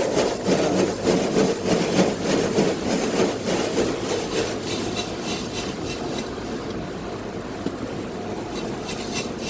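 Automatic car wash heard from inside the car: water spraying down on the car and scrubbing over it in repeated swishing sweeps, easing to a steadier, quieter hiss about six seconds in.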